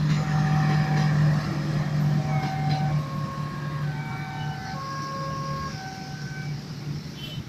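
A passenger train rolls past a level crossing and away, with a steady low hum that is loud for the first two seconds and then fades. A simple tune of held, clear notes plays over it.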